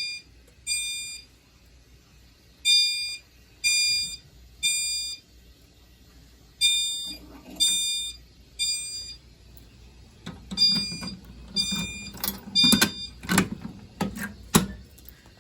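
A System Sensor Spectralert Advance chime strobe, set off from a manual pull station, sounding in a temporal-three pattern: three short high chimes, then a pause, repeated. Here the chime is working normally. Knocks and rattles from handling join in from about ten seconds in.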